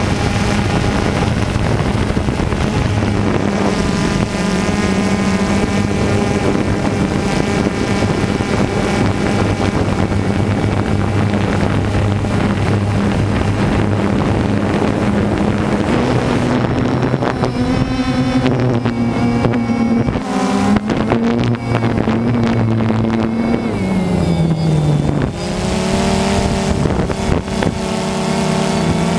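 DJI Phantom 2 quadcopter's four motors and propellers buzzing in flight, picked up by its onboard camera, with wind hiss. The pitch rises and wavers a little past the middle, drops sharply about four seconds before the end, then holds steady.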